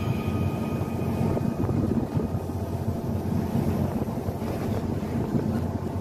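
Fishing boat's engine running with a low, steady rumble.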